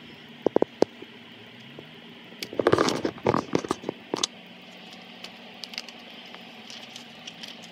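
Crinkling and rustling of sheet material being handled and lifted off a freshly heat-pressed vinyl jersey, loudest for about two seconds in the middle, after a few sharp clicks.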